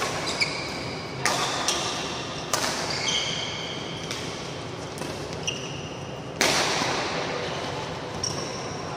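Badminton doubles rally: racket strikes on the shuttlecock about once a second, with short high squeaks of shoes on the court mat between them. The loudest hit comes about six and a half seconds in and rings on in the hall's echo.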